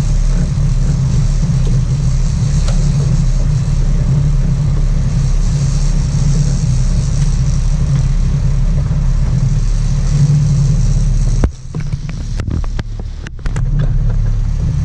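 Sport-fishing boat's engines running steadily, a low drone with wind and water hiss over it. The sound drops away for about two seconds near the end, then returns.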